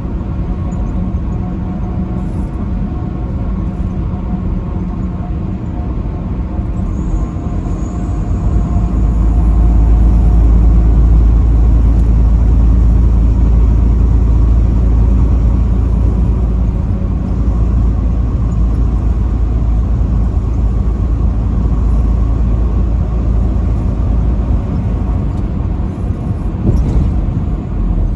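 Semi-truck driving on the highway: a steady engine and road drone with faint steady engine tones. A deeper rumble swells about nine seconds in and falls back a few seconds before the end.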